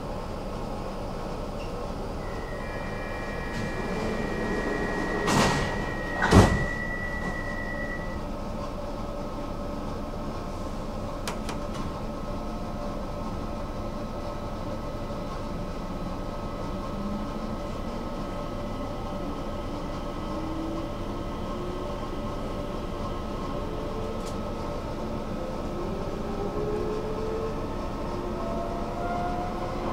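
Stockholm metro train at a station: a steady warning tone sounds for several seconds while the sliding doors close with two thuds, the second the loudest. The train then pulls away, its motor whine rising slowly in pitch over the running noise as it speeds up.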